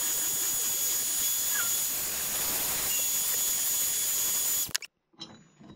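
Electric heat gun blowing hot air onto an aluminium moped crankcase half: a steady hiss of air with a thin high whine from its fan. It is switched off about three-quarters of the way through, and a few faint clicks follow.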